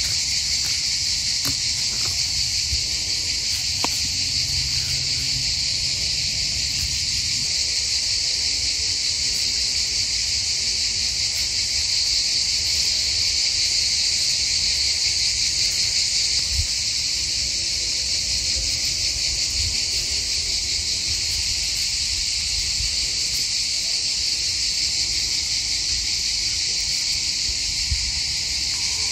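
A dense chorus of summer insects giving a loud, unbroken high-pitched buzz that holds steady throughout.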